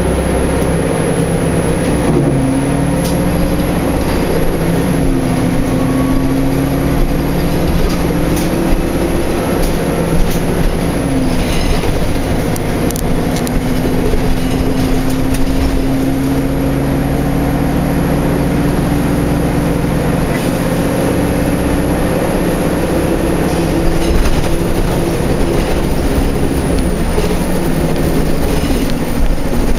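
Inside the cabin of a 2003 Orion 07.501 VII diesel city bus under way: its Detroit Diesel Series 50 engine and Allison transmission run with a whine that slowly shifts in pitch, over road rumble and occasional rattles.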